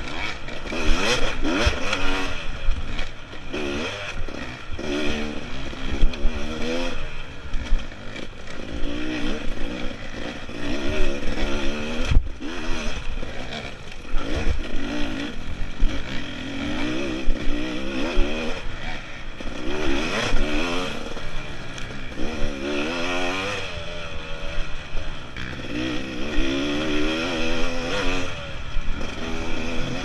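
Dirt bike engine being ridden hard off-road, revving up and down again and again as the throttle is worked and gears change, with clattering knocks from the bike over rough ground.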